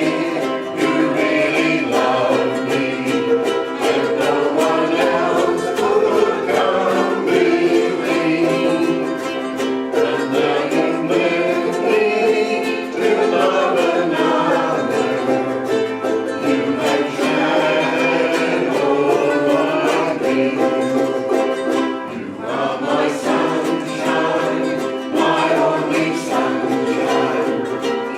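A small group singing a song together, accompanied by strummed ukuleles.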